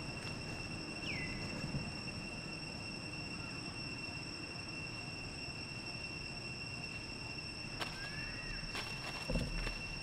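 Forest ambience dominated by a steady high-pitched insect drone. A short falling chirp sounds about a second in, a short rising chirp near the end, and a few sharp clicks or snaps come in the last two seconds.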